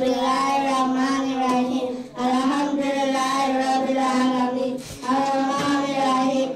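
Young girls singing together into microphones: long held notes in three phrases, with short breaks for breath about two and five seconds in.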